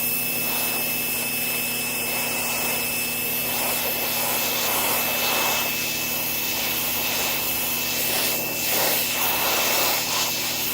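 PowerSmart 3000 PSI electric pressure washer spraying a wooden 2x4 through its lowest-power nozzle: a steady hiss of the jet on the wood over the even hum of its induction motor, growing a little louder near the end.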